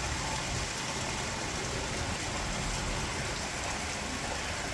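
Water gushing steadily through an opening in a wooden canal lock gate into the lock chamber as the lock fills.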